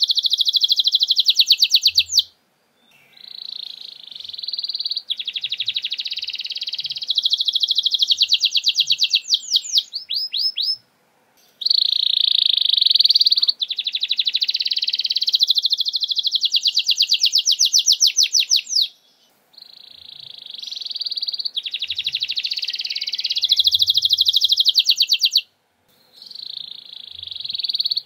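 Domestic canary singing long, high, rapid rolling trills in the fast 'nembak' style, with runs of quick falling notes, broken by short pauses every several seconds.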